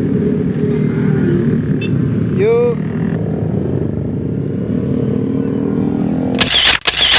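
Several motorcycles and scooters riding past at low speed, their engines a steady drone, with voices in the background. About two and a half seconds in, a short pitched call rises and falls. Near the end a loud rushing noise burst cuts in.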